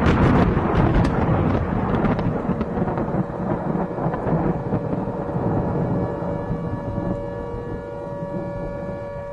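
Thunder sound effect: a sharp crack right at the start, then a long rolling rumble that slowly fades. Steady held music tones fade in under it in the second half.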